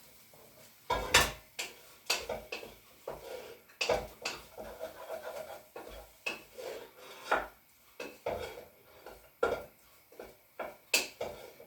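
A utensil stirring and scraping around a cooking pot, with irregular knocks and clinks against the pot about once a second.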